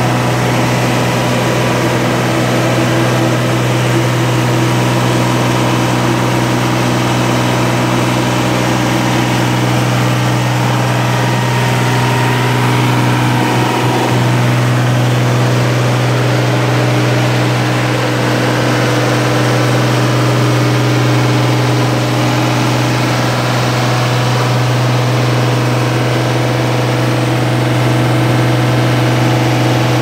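Oliver 1850 tractor's engine running steadily at a constant speed.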